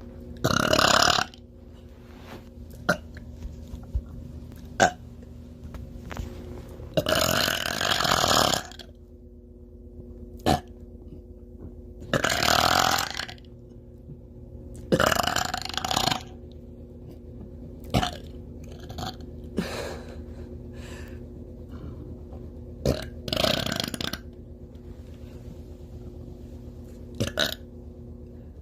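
A woman belching loudly again and again: about five long, drawn-out burps, with short sharp clicks between them. A faint steady hum runs underneath.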